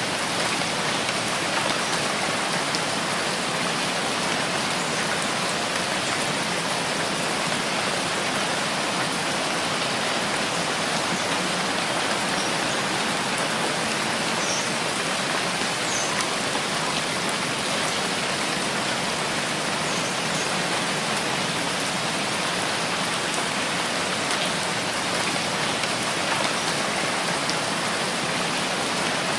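Rain falling steadily: an even, unbroken hiss of rain on surfaces.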